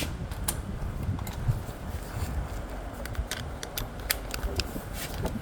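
Scattered light metallic clicks and clinks of hand tools and bolts while the brake caliper bracket bolts are being removed, over a steady low background rumble.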